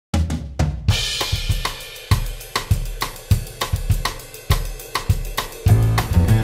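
Background music led by a drum kit: sharp snare and hi-hat strokes with a cymbal crash about a second in, then a bass line and fuller band coming in near the end.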